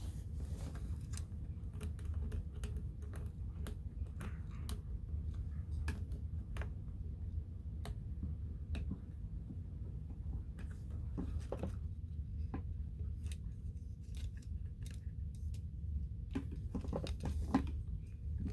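Scattered small clicks and brief scrapes of objects being handled, over a steady low hum.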